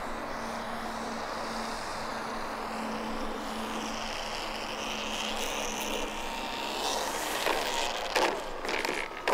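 Electric motor and propeller of an E-flite Air Tractor 1.5 m RC plane whirring at low throttle on the landing approach. Near the end it touches down on the asphalt runway, giving a few short knocks as it rolls out.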